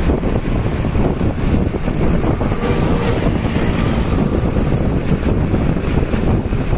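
Tour bus engine and exhaust running hard at speed, with heavy wind buffeting on the microphone.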